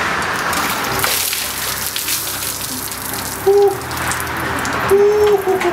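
Ice water dumped from a bucket over a person's head, gushing and splashing. Two short yelps at the cold come about halfway through and near the end.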